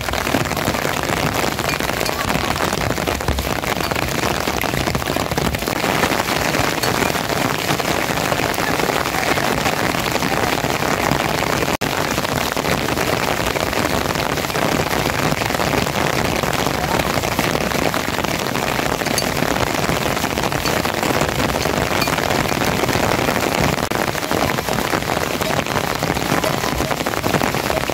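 Steady rain falling, an even hiss of drops that keeps up without let-up.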